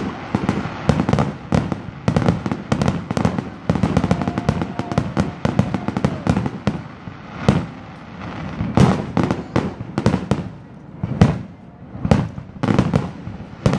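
Aerial fireworks show: a fast, overlapping string of shell bursts and crackles, with the sharpest bangs in the second half.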